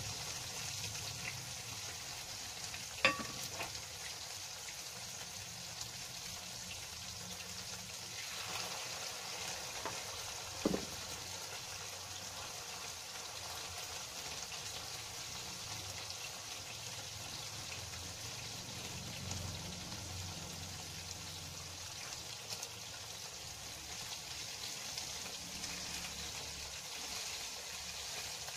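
Anchovy fritters (tortang dilis) sizzling as they fry in oil in a pan, a steady hiss, with two sharp clicks about three seconds and about eleven seconds in.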